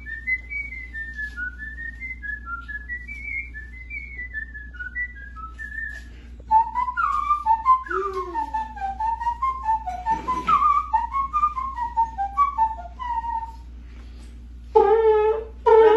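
A man whistling a melody with puckered lips, in short quick notes; about six and a half seconds in the tune moves down to a lower register and gets louder. A voice comes in just before the end.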